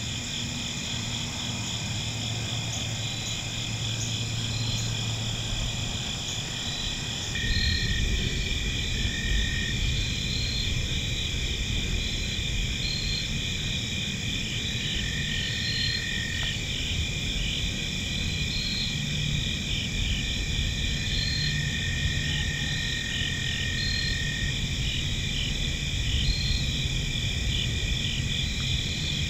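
Evening chorus of insects such as crickets and katydids: steady high trilling in several layered pitches with short repeated chirps on top, over a low steady rumble. The blend shifts abruptly about seven seconds in.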